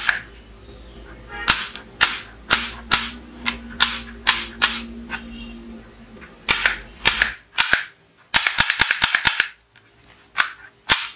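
Plastic toy cowboy revolver being clicked: sharp snaps of its hammer and trigger mechanism, a few a second at uneven intervals, then a fast run of about ten clicks about three quarters of the way in, and two more near the end.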